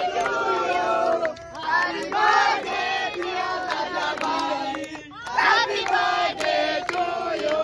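A group of people singing and chanting together loudly, with hand claps. The voices break off briefly about a second and a half in and again around five seconds in.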